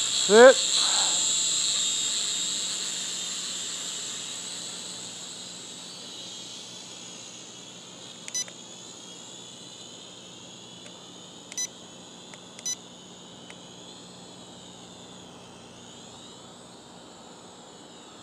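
Striker toy quadcopter's propellers whining high, fading as the drone flies off, then wavering up and down in pitch as the motors speed up and slow down. Three short beeps come partway through.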